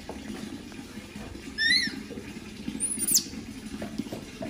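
Newborn baby monkey squeaking twice: a short high call about a second and a half in, then a higher squeak that falls sharply in pitch about three seconds in.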